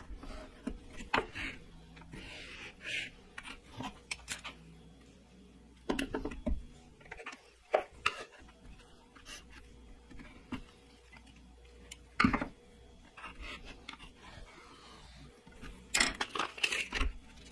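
A pencil scratching along a steel combination square as lines are marked on a fibreboard panel. Scattered sharp clicks and knocks come as the square is moved and set down on the board and the saw's metal top, the loudest about twelve seconds in and a cluster near the end.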